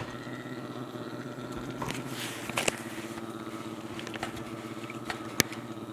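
Brown bear making a steady, motor-like humming drone while licking, with a few sharp clicks, the loudest near the middle and near the end.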